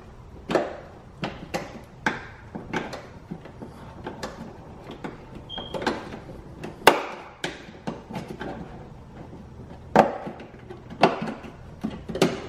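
Irregular clicks and knocks of hands working a cable in behind a car's interior trim, about a dozen sharp knocks spread unevenly, the loudest about seven and ten seconds in.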